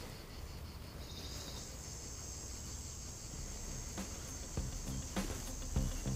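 Insects chirring in a steady high-pitched drone, growing stronger about a second in, over a low rumble, with a few soft knocks near the end.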